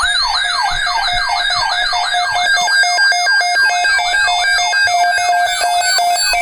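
Electronic siren-like alert tone for a broadcast emergency alert: a rapidly repeating falling whoop, about four a second, over steady high electronic tones.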